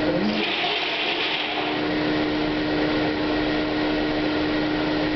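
Corn grain dryer's blower running steadily: a constant airy rush with a strong steady hum over it, and a brief swell of hiss about half a second in.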